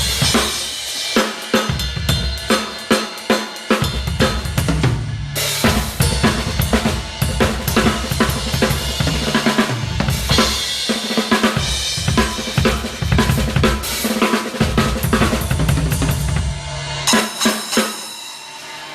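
Acoustic drum kit played in fast gospel-style chops during a sound check: rapid snare strokes with bass drum and cymbal crashes, with short breaks about five and ten seconds in.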